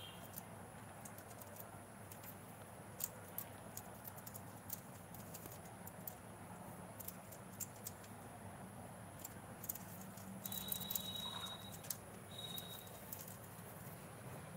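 Light, irregular clicks and taps, many singly and a few in quick runs: a rose-ringed parakeet's beak and claws on a plastic crate. A thin, steady high whistle sounds briefly about ten seconds in.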